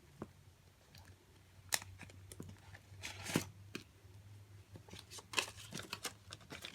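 Paper rustling with light clicks and swishes as paper banknotes are handled and taken out of a savings envelope, with one louder rustle about three seconds in.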